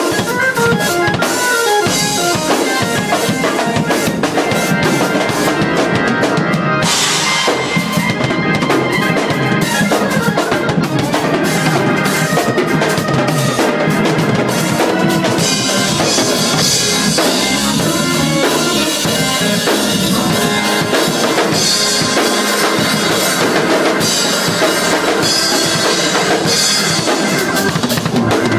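Two drum kits played at once in a fast gospel drum shed: snare, bass drum and toms under Sabian cymbal crashes and wash. The cymbals grow louder about 7 seconds in and again in the second half.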